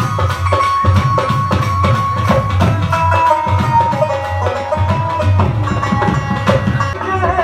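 Instrumental break in a live Punjabi folk song: a fast drum beat with clicking percussion under a sustained melody line.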